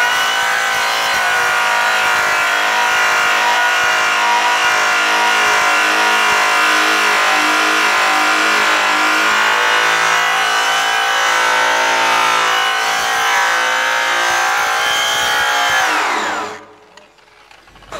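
Makita grinder running at about 6000 RPM with a Keystone cotton buff and brown Tripoli compound polishing an aluminum fuel tank: a steady, loud motor whine with the buff rubbing on the metal. About sixteen seconds in the tool is switched off and winds down, its pitch falling away.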